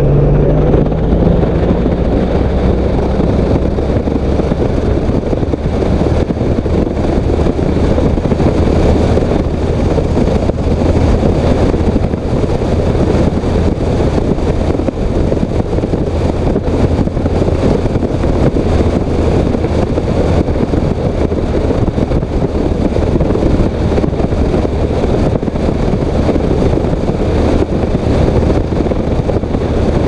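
Loud, steady wind noise buffeting a helmet-mounted microphone on a Honda CTX1300 motorcycle at road speed, with the V4 engine running low underneath. The rider takes the wind noise to come from riding with the modular helmet's chin bar up.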